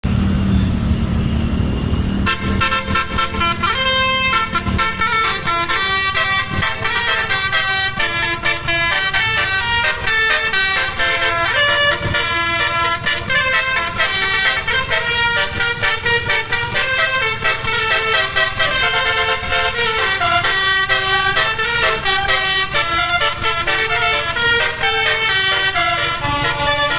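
Bus 'telolet' horn, a set of air trumpets playing a fast melody of quickly changing notes. It starts about two seconds in, after a low vehicle rumble.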